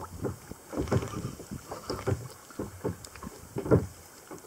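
Water knocking and splashing irregularly against a kayak's hull, with wind on the microphone.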